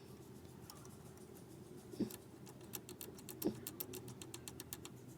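Faint knocks and a quick run of sharp clicks, several a second, in the middle: small metal parts or hand tools being worked.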